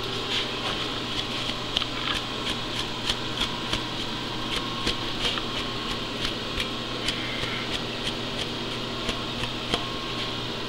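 Milling machine running an 8 1/4-inch fly cutter across the face of an exhaust manifold. The single tool ticks about three times a second as it strikes the work in an interrupted cut, over the steady hum of the machine. This is the finishing pass of the surfacing cut.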